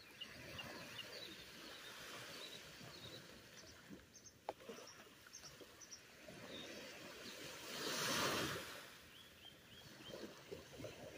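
Faint surf washing on the beach, with one wave swelling and breaking about eight seconds in. Short high bird chirps come in quick little series over it.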